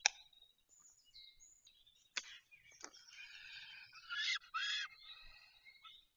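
Wild songbirds singing and chirping in high, patterned phrases, the loudest a pair of bright notes about four seconds in. A few sharp clicks sound among them: twice early on, once near the end.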